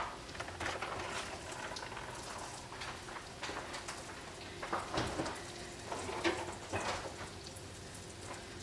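Hot oil in a frying pan sizzling and crackling faintly and steadily, with a few soft knocks about five to seven seconds in.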